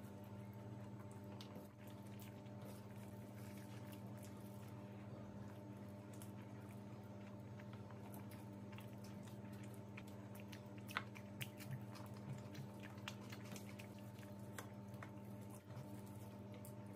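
Faint chewing and wet, squishy mouth sounds of someone eating biryani by hand, with scattered small clicks of fingers working rice on a steel plate, more of them in the second half. A steady low hum runs underneath.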